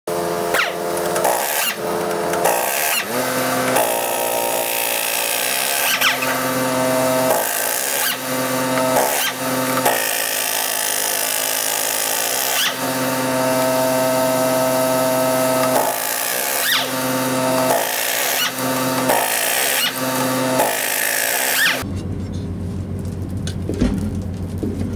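Pneumatic impact wrench on a truck's rear-wheel lug nuts: a steady whine in runs of one to a few seconds, broken by short stops and knocks, cutting off about 22 seconds in.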